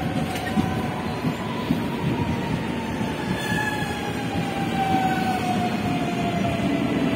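CPTM electric multiple-unit train running along the platform: a steady rumble of wheels and cars, with an electric motor whine that falls slowly in pitch.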